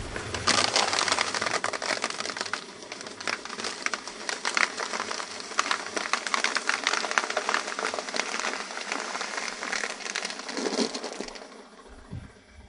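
Dry spaghetti sticks snapping and a floral foam block crunching under a slowly rolling car tyre: a dense run of sharp cracks and crackles that dies away near the end.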